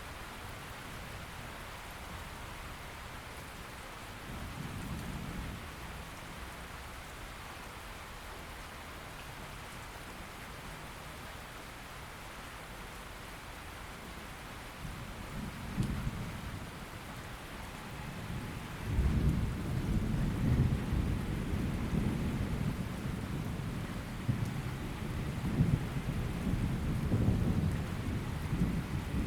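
Steady rain with rolling thunder: a brief low rumble about five seconds in, then a crack of thunder around 16 s and a longer, louder rumble from about two-thirds of the way through that carries on to the end.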